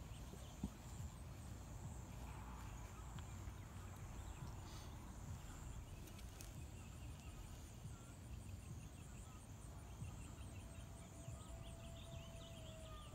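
Quiet outdoor ambience: a low, even rumble with faint, high insect-like chirping. There is one small click about half a second in, and a faint steady tone comes in near the end.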